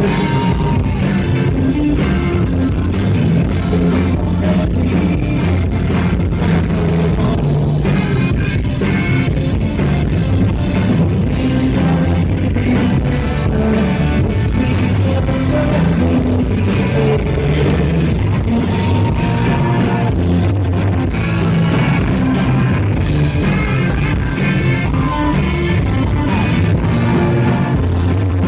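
Rock band playing live and loud: electric guitar and drum kit in a steady, full groove, with singing.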